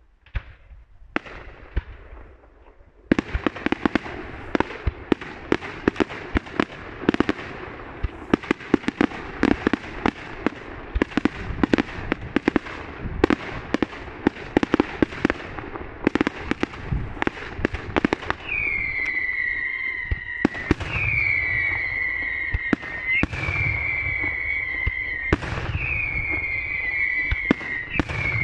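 Daylight fireworks display: a few sharp reports, then from about three seconds in a dense, rapid barrage of bangs and crackles. About two-thirds of the way through, five shrill whistles set in, each sliding slightly down in pitch and following one another about every two seconds over the continuing bangs.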